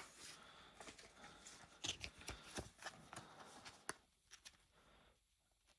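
Faint rustling and light clicks of trading cards being handled and slid into plastic card sleeves, quieter over the last couple of seconds.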